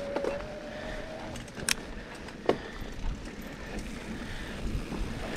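Off-road electric-assist handcycle riding over a dirt trail. A steady motor whine, rising slightly in pitch, cuts out about a second in, over wind on the microphone and tyre noise, with two sharp knocks from the bike on rough ground.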